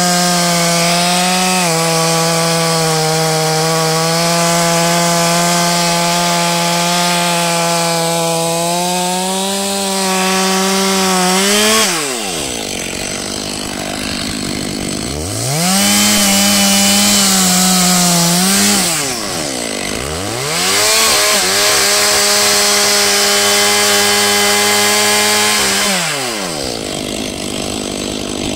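Chainsaw running at full throttle, cutting into a tree stump, for about twelve seconds, then throttled off to idle. It is then revved up and held twice, dropping back to idle after each.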